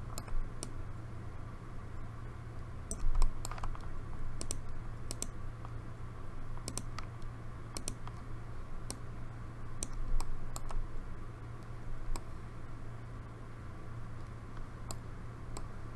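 Irregular clicks of a computer mouse and keyboard, scattered singly and in short clusters, over a steady low hum.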